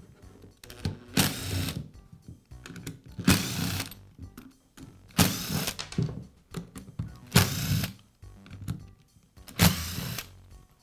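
Cordless screwdriver running in five short bursts, backing screws out of the polisher's plastic handle housing.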